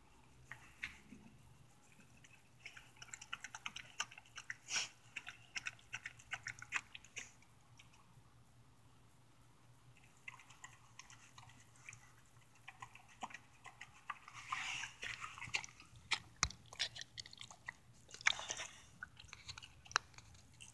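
A dog eating soft turkey leftovers: wet chewing and smacking in quick clicking runs, with a short lull near the middle.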